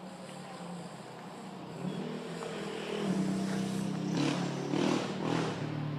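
A motor vehicle engine running, its pitch rising about two seconds in and changing several times after that, as when it is revved.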